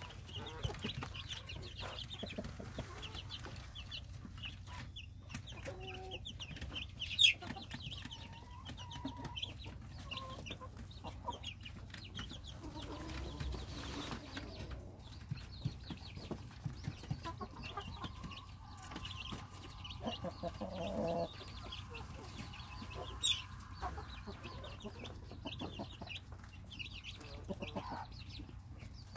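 Korean native hen and her chicks: the chicks peep in short high chirps throughout while the hen gives a few low clucks. Two sharp taps stand out, one about seven seconds in and one near the end.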